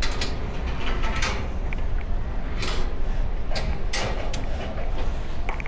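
Irregular knocks and clanks of hands and boots on a construction crane's steel ladder during a climb, over a steady low rumble of wind on the microphone.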